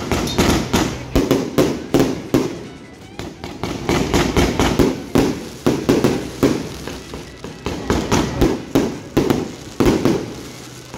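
Fireworks display going off: aerial shells bursting with sharp, irregular bangs and crackling, several a second in clusters.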